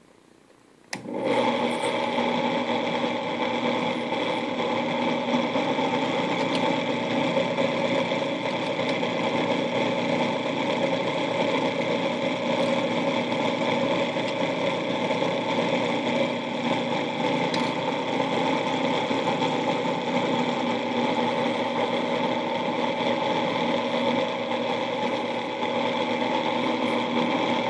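Benchtop drill press switched on about a second in and running steadily, its motor and drive giving a constant whine. A number 46 drill bit is being fed through a 3D-printer hot end's bore to clear out clogged plastic.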